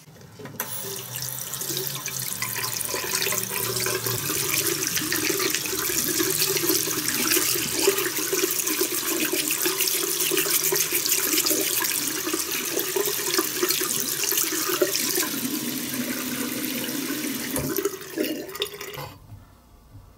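A stream of water running and splashing into a sink while a toothbrush scrubs a small diecast metal car body under it. The water starts just after the beginning and stops about a second before the end.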